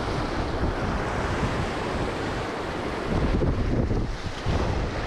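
Sea surf washing and breaking over rocks, with wind buffeting the microphone as a low rumble.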